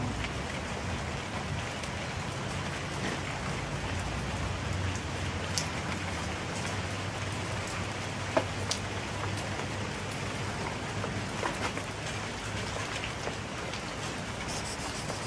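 Steady rain falling on hard ground, with a few sharp drip clicks and a low steady hum underneath.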